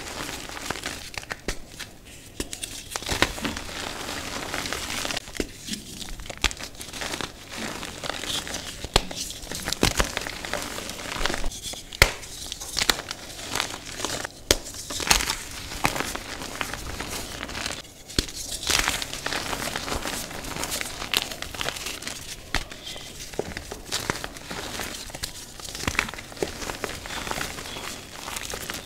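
Reformed gym chalk crumbled and squeezed to powder by hand: dry, irregular crunching and crackling with many small sharp cracks, easing off briefly now and then.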